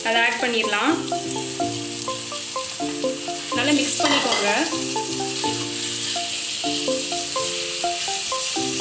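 Beef liver pieces sizzling in hot oil and onion-spice masala in a kadai as they are stirred with a wooden spatula, a steady frying hiss. Background music with short, steady repeating notes plays along.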